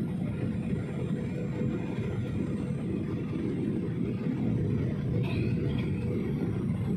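Steady jet-engine and airflow rumble heard inside an airliner cabin on approach to landing, deep and even, with a faint steady hum above it.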